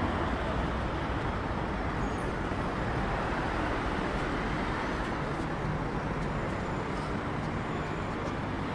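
City street traffic: a steady, even hum of cars and minibuses running along the road, with no single vehicle standing out.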